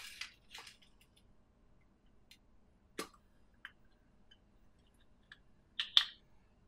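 Kinder Surprise egg's plastic toy capsule being handled and snapped open: scattered small clicks, with the loudest sharp snap about three seconds in. Brief crinkling of the toy's clear plastic wrapper near the end.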